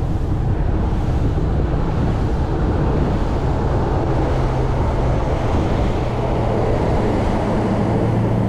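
Bass boat's outboard motor running at speed: a steady low engine drone under a loud rushing of wind and water.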